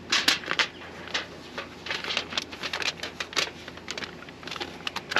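Wide foil tape crinkling and crackling as it is handled and pressed onto the insulation sleeve of a vent pipe: a quick run of irregular crackles, loudest just after the start, then scattered ones.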